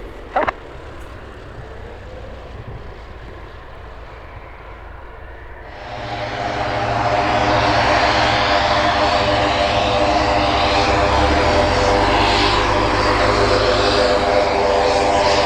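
Mooney M20J's four-cylinder Lycoming engine and propeller: at first a lower steady running sound with a short click about half a second in, then about six seconds in the engine comes up to full take-off power and holds loud and steady.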